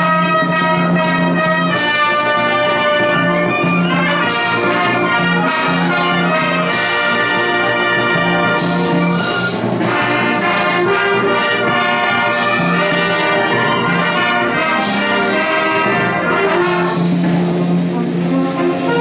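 Large wind band playing a capitanía, a Valencian Moros y Cristianos festival march: brass-led sustained chords over a held low note, with sharp accents every few seconds.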